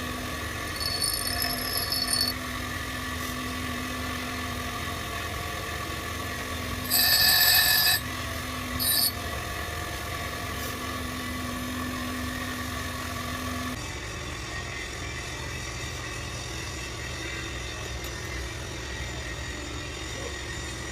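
Workshop machine running steadily with an on-and-off hum, broken by brief loud high-pitched screeches about a second in and again about seven seconds in.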